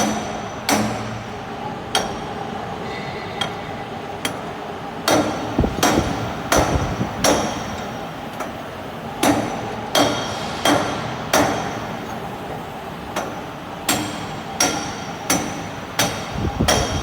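Sharp metallic knocks with a short ring, about twenty of them at an irregular pace of roughly one a second, over a steady machine hum.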